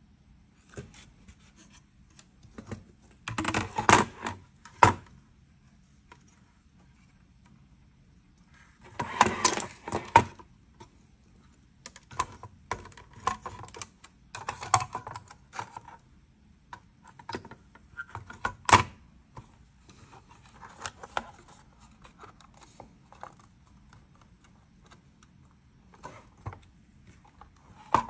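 Intermittent clicks and clatter of a circuit board and its display panel being handled and fitted together, with short bursts of rattling and one sharp click about two-thirds of the way through.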